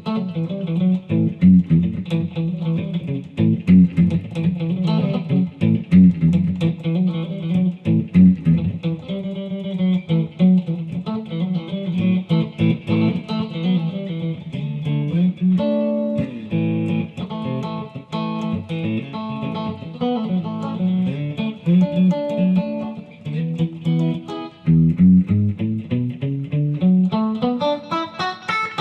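Custom Strat-style electric guitar played solo: low riffing on the lower strings, then spaced single-note lines higher up the neck, ending in a rising run of notes over the last few seconds.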